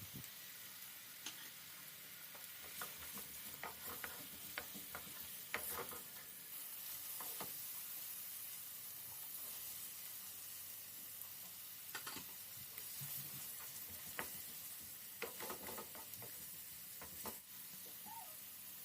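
Food frying in a pan with a steady sizzle, while a utensil stirs it, clicking and scraping against the pan now and then.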